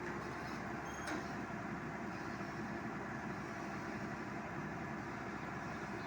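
A vehicle engine running steadily at idle, with a faint click about a second in.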